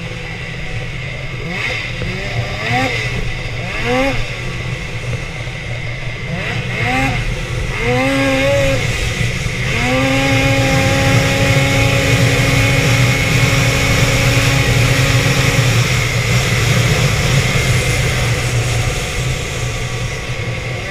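Two-stroke snowmobile engine under way, revved up and down in several short throttle blips, then held at a steady higher pitch for several seconds as the sled runs at speed, over a constant low rumble.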